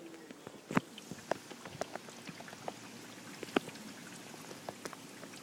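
Raindrops falling on a hard surface: irregular sharp taps, a few a second, over a faint hiss of rain, with the loudest two about a second in and about three and a half seconds in.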